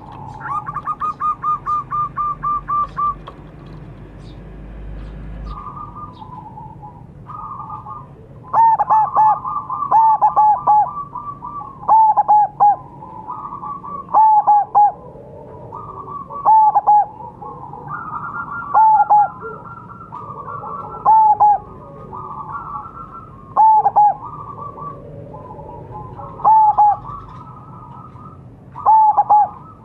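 Zebra dove (perkutut) cooing. Its phrases of a few quick, clear notes repeat about every two and a half seconds from about a third of the way in, and softer calls of another bird fill the gaps between them. The sequence opens with a quick run of about a dozen notes.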